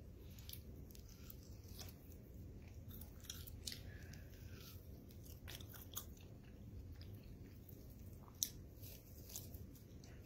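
Someone chewing raw beef: scattered short mouth clicks and smacks over a low steady background noise, with a sharper click about eight seconds in as the loudest.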